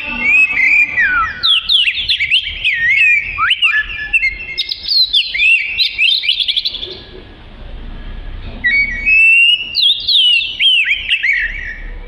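Oriental magpie-robin (kacer) singing a loud, fast song of varied whistles and rapid sweeping notes. It comes in two bursts, with a pause of about a second and a half just past the middle.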